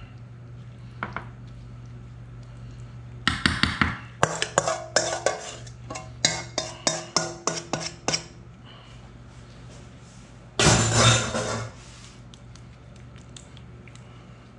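Kitchen utensil clinking and scraping against a dish while the cheese filling is spread: a run of irregular sharp taps for about five seconds, then a single louder scrape of about a second, over a steady low hum.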